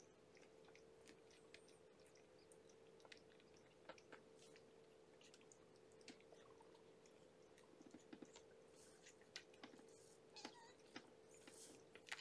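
Kittens suckling at their nursing mother cat: scattered faint wet smacking clicks, a little busier near the end, over a steady faint hum.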